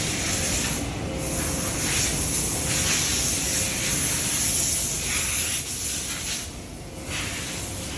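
Compressed-air paint spray guns hissing in long bursts that stop briefly a few times, over a steady low machinery rumble.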